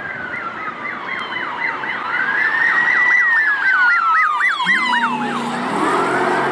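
Police car siren sounding: a fast yelping warble over a slow rising-and-falling wail. A low steady drone joins about two-thirds of the way in.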